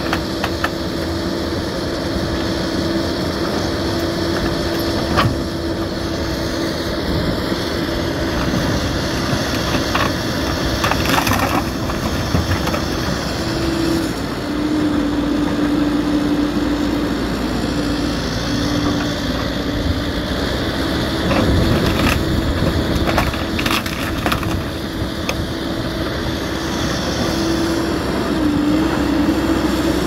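Excavator running steadily with a droning tone that sags lower in pitch twice, in the middle and near the end, as it takes load. Scattered sharp cracks and crunches sound over it.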